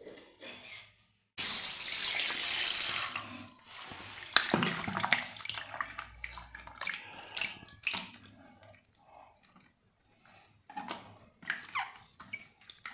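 Kitchen tap running for about two seconds, then hands washing raw meat in a bowl of water: irregular splashing and sloshing, with one sharp knock about four seconds in.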